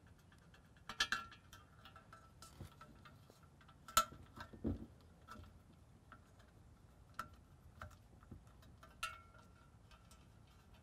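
Faint, scattered clicks and metallic clinks, a few with a short ring, as an LED cable's connector is worked through a hole in an aluminum railing post. The sharpest clink comes about four seconds in, followed closely by a duller knock.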